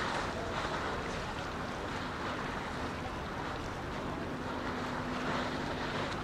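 Steady outdoor wind noise on the microphone with a watery rush, and a faint low steady hum from about two seconds in that fades out near the end.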